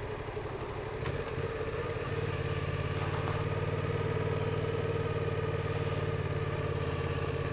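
Yamaha XSR700's parallel-twin engine running at low revs while the bike rolls slowly along, getting a little louder about two seconds in as the throttle opens.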